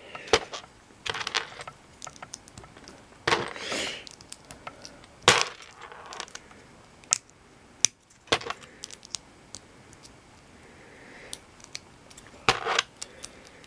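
LEGO pieces and packaging being handled: scattered light clicks and rattles of small hard plastic parts, with a few louder, longer handling noises, one about three seconds in, one about five seconds in and one near the end.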